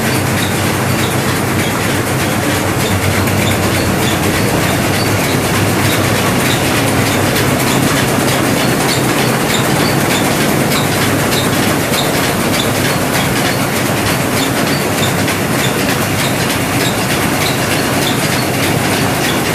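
Three-stone rice milling machine running: a steady, loud mechanical noise with a low hum and a fast, dense ticking.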